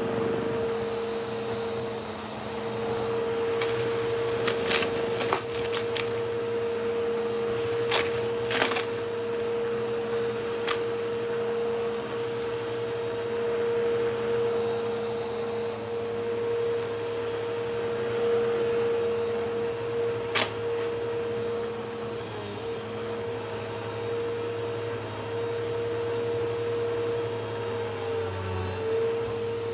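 Bissell upright vacuum cleaner running steadily with a high motor whine as it picks up fluff and crunchy granules from carpet. Scattered sharp clicks and crackles come as debris rattles up the nozzle, most of them in the first ten seconds and one more about twenty seconds in. The motor's pitch sags briefly near the end.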